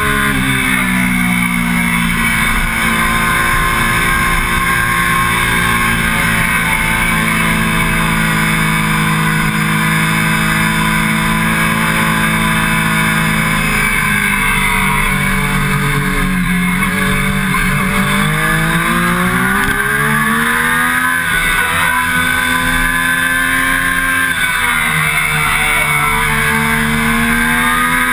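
Triumph Daytona 675's inline three-cylinder engine running hard on track, with wind rush over the tank-mounted camera. The revs fall about halfway through, then climb again with a short dip a few seconds later. They fall and rise once more near the end.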